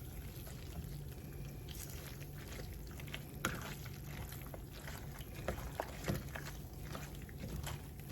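A spoon stirring and mixing cabbage through a thick butter, cheese and cream sauce, with wet squishing and occasional short clicks and scrapes of the utensil against the pan, over a steady low hum.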